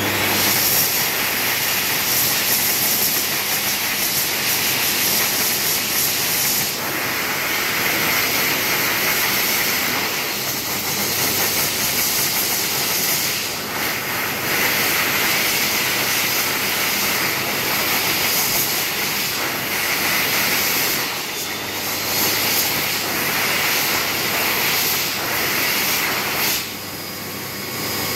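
Airforce stainless-steel hand dryer running: a loud, steady rush of air over a low motor hum. The level dips briefly several times as hands move in the airflow, and drops for a second or so near the end before picking up again.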